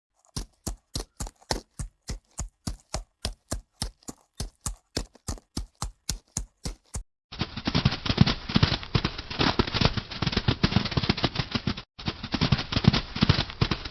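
Camel sounds: first a run of evenly spaced knocks, about three a second, for some seven seconds. Then a long, rough, rattling grumble takes over, broken once briefly near the end.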